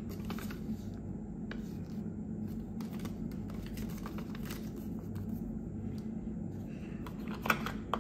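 A handlebar mount and its packaging being handled: faint rustling and scattered light clicks, with a sharper clatter about seven and a half seconds in, over a steady low hum.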